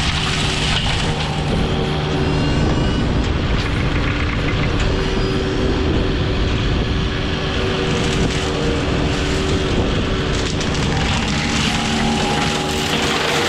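Mini excavator's diesel engine running steadily at high revs, driving a spinning forestry mulcher head as it works brush and wood.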